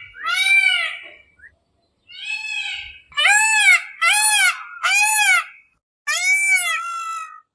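Peacock calling: a series of about six loud, wailing calls, each rising then falling in pitch and lasting under a second. The second call is fainter, and three come in quick succession near the middle.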